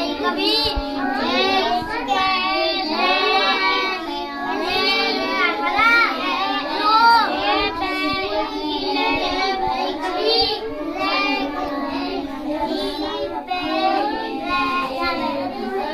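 Several children reading aloud from picture books at the same time, their voices overlapping continuously.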